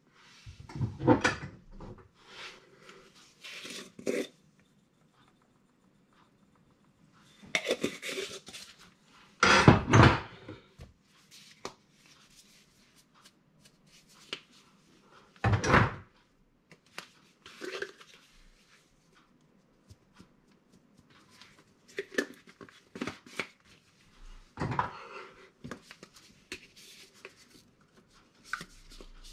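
Intermittent kitchen clatter: spice jars and their lids being picked up, opened and set down on the counter, scattered clicks and knocks with a few louder knocks about a third of the way and halfway through.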